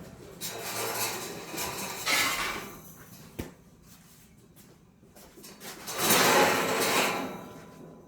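Scraping and rubbing of steel pieces being handled, in two stretches with a single sharp knock between them; the louder stretch comes about six seconds in.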